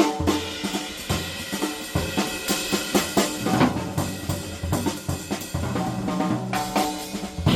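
Jazz drum kit playing a solo passage: quick snare and rimshot hits, bass drum and tom accents, and cymbal and hi-hat strokes, in a swing-jazz performance.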